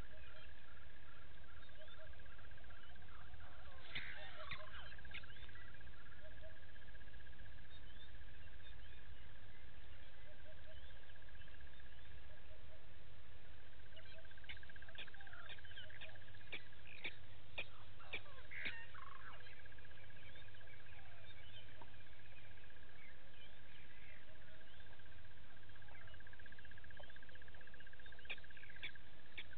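Wild birds giving short, sharp calls in clusters, over a steady high drone and a low rumble.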